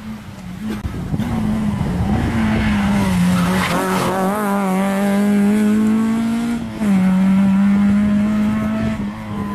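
Peugeot 306 S16 rally car's four-cylinder engine held at high revs on a rally stage, its pitch climbing slowly, then dropping sharply about two-thirds of the way through before holding steady again.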